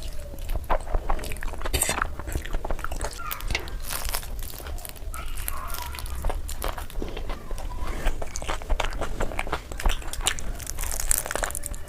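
Close-up eating sounds of a person chewing noodles: irregular wet smacks, clicks and chewing noises.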